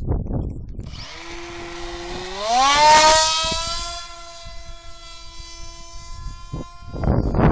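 Turnigy D2826 2200KV brushless electric motor and 6x4 propeller of a foam RC jet model whining, rising in pitch about two seconds in as the throttle comes up and loudest just after, then holding a steady high whine in flight.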